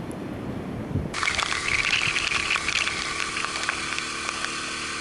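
Wind on the microphone for about the first second, then a sudden change to riding a Honda Super Cub 50 on a soaked road in rain: a steady hiss of spray from the wet road, with scattered ticks of raindrops hitting the camera and a faint engine hum beneath.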